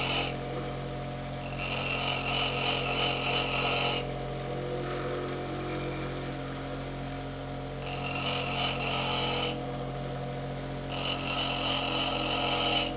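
Bench grinder motor running steadily while a steel twist drill bit is pressed to the spinning stone wheel in three passes to sharpen its dull cutting edge. Each pass is a harsh grinding hiss lasting one and a half to two and a half seconds, with only the running hum between passes.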